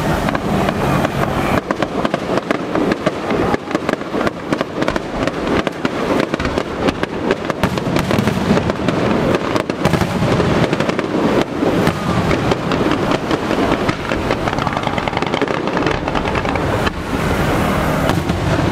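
Aerial fireworks show: a continuous, dense run of shell bursts and crackling, with many bangs overlapping one another.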